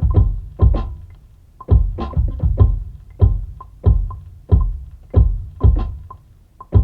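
Instrumental beat: heavy low drum hits in a steady repeating pattern, with percussion and a short recurring pitched note.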